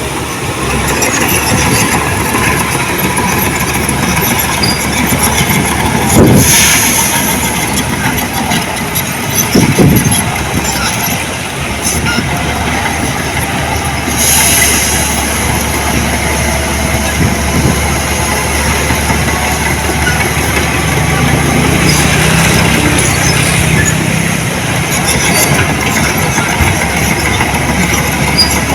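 Diesel engines of heavy earth-moving machinery, a dump truck and a bulldozer, running steadily with clanking and rumbling. The engine noise briefly swells louder twice, about six and ten seconds in.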